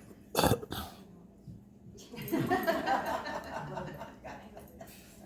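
A single sharp cough about half a second in, followed by indistinct low talk from people in the room.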